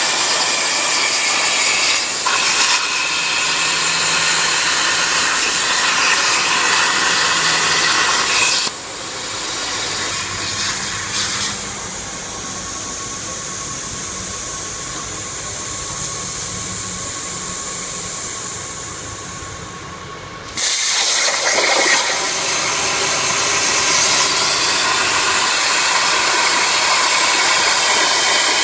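CNC plasma cutter's arc cutting with a loud, steady hiss. About nine seconds in the arc cuts off, leaving a quieter low hum for about twelve seconds, and then the arc restarts and the hiss returns.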